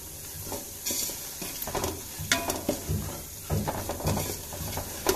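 Wooden spatula stirring and scraping through a thick, simmering spice masala in a large metal pot, in irregular strokes over a steady sizzle. The masala is being cooked until the raw smell of the spice powder is gone.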